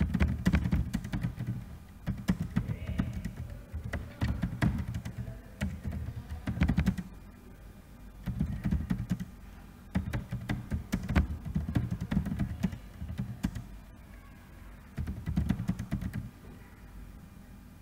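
Typing on a computer keyboard: bursts of rapid keystroke clicks with short pauses between.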